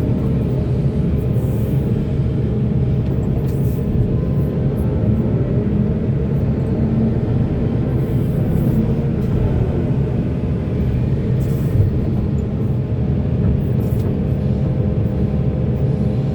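Heavy diesel machinery of an excavator and dump truck running steadily at mining work: a continuous low engine drone, with short hisses every few seconds.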